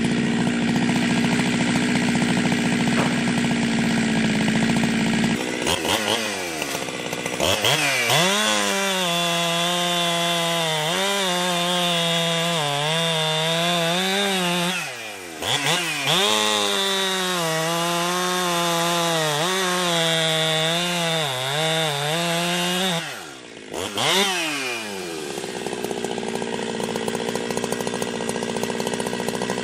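Ported Jonsered 2071/2072 two-stroke chainsaw running at high revs. From about 6 s its pitch wavers up and down as it works in the wood. The sound drops out briefly twice, and the saw runs steady again near the end.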